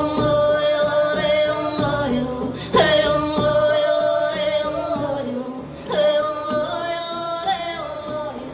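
Stage song with accompaniment: three long held sung phrases, each starting sharply about three seconds apart, fading near the end.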